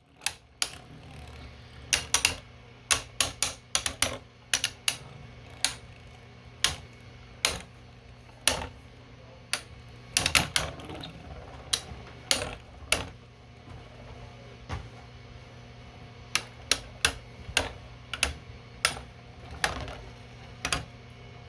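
3D-printed beyblade spinning tops battling in a stadium, knocking together in irregular sharp clacks, some in quick clusters.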